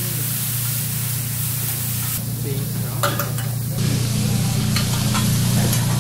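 Food sizzling and frying on a steel teppanyaki griddle while metal spatulas stir and toss it: a steady hiss over a low hum, with a few light scrapes and clicks.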